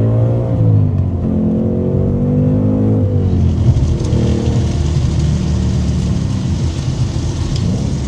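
Ford Mustang under way, its engine note climbing and then dropping about three seconds in. A harsh, horrendous flapping noise from underneath sets in alongside it. The noise comes from a loose sticker on the spinning carbon-fibre driveshaft slapping against something under the car.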